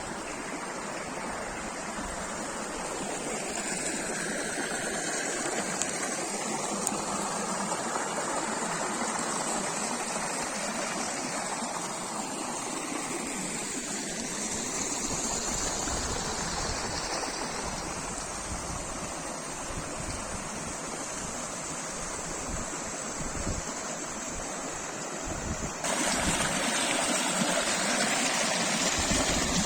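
Steady rushing of a flowing stream. About 26 seconds in it gets suddenly louder and brighter.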